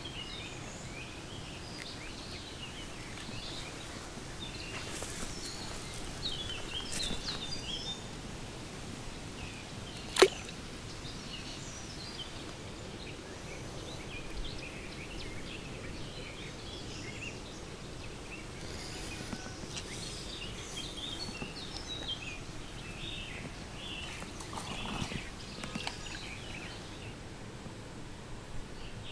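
Riverside outdoor ambience: a steady background hiss with scattered small bird chirps, and one sharp click about ten seconds in.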